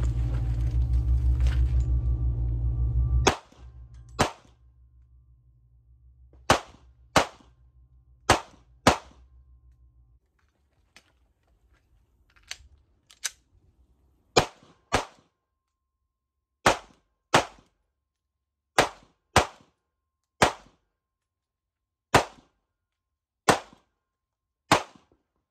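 Background music cuts off about three seconds in, then a Sig Sauer P365 XL 9mm pistol is fired: sharp single shots with a short ring-out, mostly in quick pairs well under a second apart, and near the end as single shots a little over a second apart.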